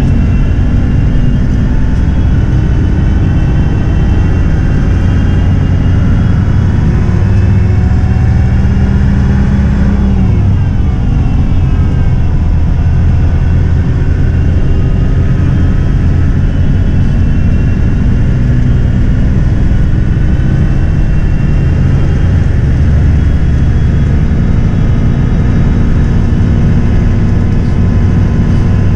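Daewoo BH117H bus's diesel engine heard from inside the cabin, pulling under acceleration. About ten seconds in the revs break and drop briefly as it upshifts, then climb again and settle into a steady cruise.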